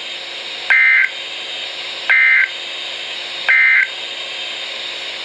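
NOAA Weather Radio Emergency Alert System end-of-message code: three short, identical buzzy data bursts about 1.4 s apart over steady radio hiss, signalling that the flood warning broadcast has ended.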